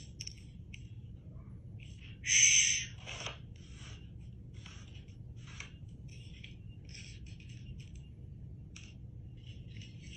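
Handheld plastic sunflower-seed tool working seeds over an open palm: scattered small clicks and crackles of seeds and husks, with one loud short rasping rattle about two and a half seconds in.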